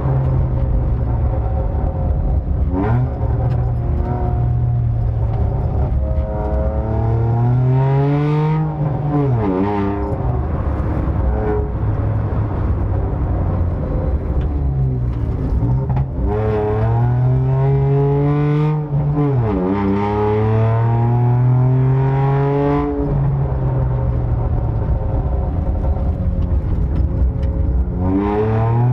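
Car engine revving, its pitch climbing and then dropping sharply about five times.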